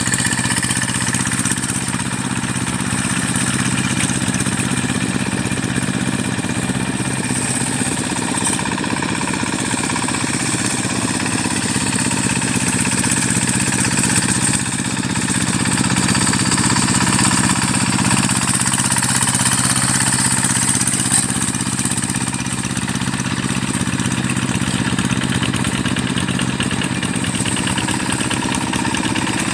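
Rice-field tractor engine running steadily under load as it works the wet paddy soil.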